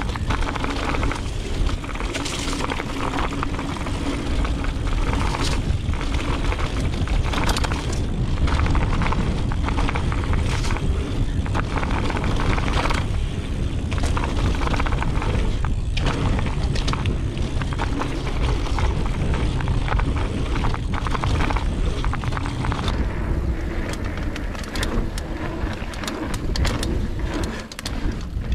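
Mountain bike descending a dirt flow trail: heavy wind rumble on the rider's microphone and the steady rush of tyres on dirt, with frequent short clicks and knocks of the bike rattling over bumps.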